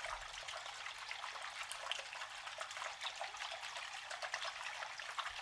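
Water trickling steadily along a shallow channel, a small artificial stream, with many tiny splashes.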